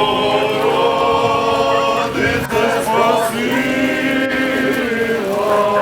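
Choir singing a slow song in long held notes, with a short break about two seconds in and another near the end.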